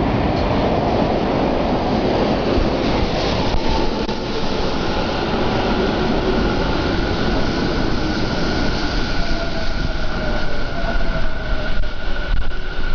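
Electric commuter train running in along the platform: a dense rumble of wheels on rail, with a thin steady high tone from about five seconds in and a faint falling whine a few seconds later.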